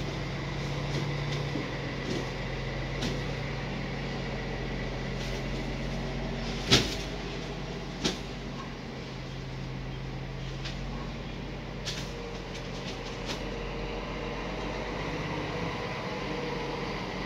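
Heavy truck engine running steadily, with one sharp knock about seven seconds in, a lighter knock a second later and a few faint clicks afterwards.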